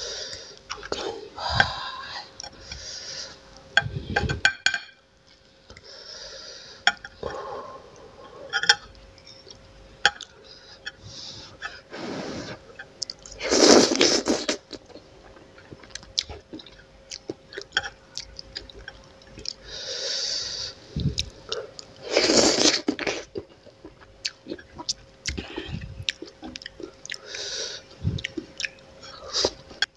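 Close-miked eating of spicy instant noodles: wet chewing and mouth noises throughout, with two long, loud slurps of noodles, one about halfway through and one a few seconds after.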